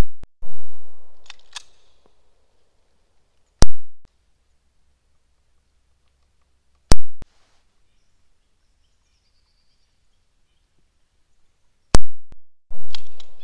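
Handgun shots fired one at a time, four in all, spaced several seconds apart. Each is a sharp crack, and the first and last are each followed by a long echo.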